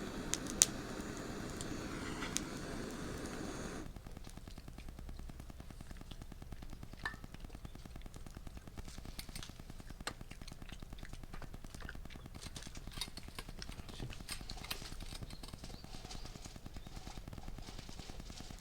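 Wood fire crackling, with scattered sharp pops. A louder, steady low rumbling noise in the first four seconds cuts off abruptly.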